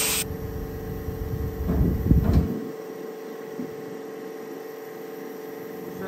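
Compressed-air blowgun hissing, cut off a moment in, leaving a steady hum. About two seconds in there is a short burst of loud, low knocks and clunks.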